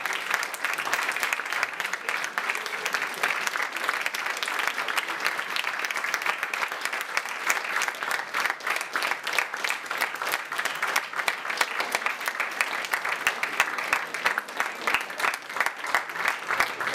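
Audience applauding: a roomful of people clapping, dense and unbroken throughout.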